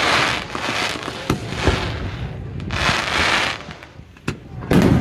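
Aerial fireworks bursting overhead: stretches of crackling from the exploding shells, several sharp bangs, and a loud deep boom near the end.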